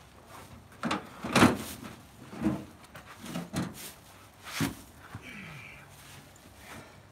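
Heavy ash firewood rounds knocking and thudding against each other and the pickup's bed as they are shifted and lifted off the tailgate: a series of separate knocks, the loudest about a second and a half in.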